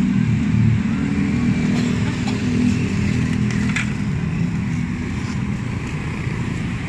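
Steady street traffic: motor vehicle engines running along the road, with a few faint clicks.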